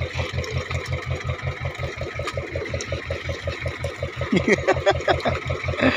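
Fishing boat's engine idling with an even low thud, about six beats a second, over the light patter of small bait fish flapping on the wet deck.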